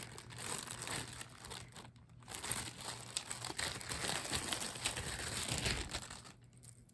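Plastic jewelry packaging and bags crinkling as they are handled, in irregular rustles that stop near the end.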